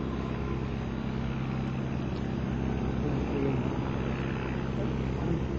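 Engine of a Stampe-Vertongen SV-4 biplane running steadily in flight, a constant propeller drone heard from the ground.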